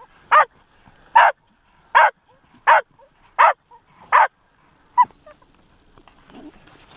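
Jagdterrier barking at a fox in short, high, yelping barks, seven in a row about one every three quarters of a second, the last one shorter.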